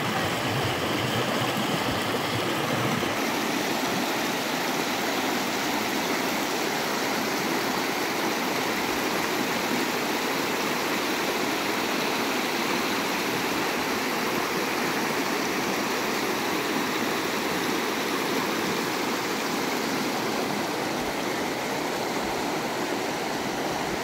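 Shallow mountain stream rushing over rocks and small rapids, a steady, even rush of water; its deepest rumble eases about three seconds in.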